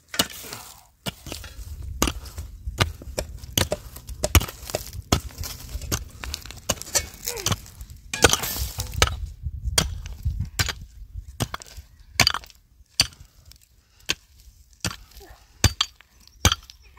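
Irregular sharp blows of a hand tool striking wood, about one to two a second, typical of chopping or shaping timber for a hut frame, with a low rumble underneath during the first half.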